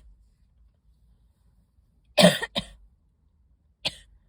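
A person coughing: a quick double cough about two seconds in, then one short cough near the end.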